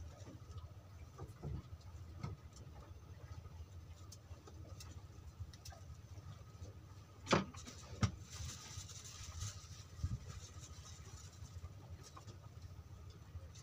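Open-air ambience aboard a small wooden fishing boat: a steady low rumble like wind on the microphone, with scattered light knocks. Two sharper knocks come a little past halfway, followed by a brief hiss.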